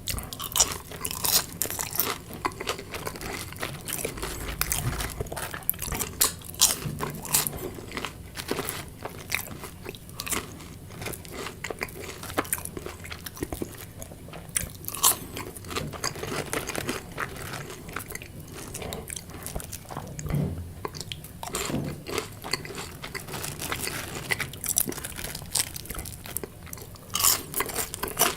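Close-miked chewing of crunchy food: a continual run of crisp, irregular crunches as bites are broken down in the mouth.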